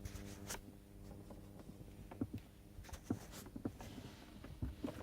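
Faint scattered clicks and taps over a low steady hum inside a 2013 Kia Soul whose engine does not crank or start.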